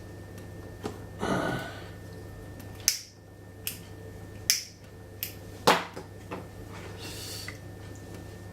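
Water hammer in household pipework, set off by a tap dripping faster while the boiler runs: irregular sharp knocks and ticks, the loudest about three, four and a half and nearly six seconds in, with a couple of short rushing sounds. A steady low hum runs underneath.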